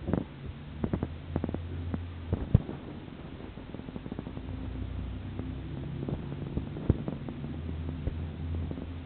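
Knife and hand-handling noise while raw chicken is cut up over a plastic tray: scattered clicks and knocks over a steady low hum, the loudest knocks about two and a half seconds in and near seven seconds.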